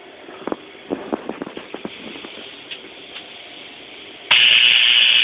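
A few light handling knocks, then about four seconds in a homemade violet ray switches on with a sudden loud, steady buzzing hiss laced with crackle: its high-voltage discharge in the glass electrode.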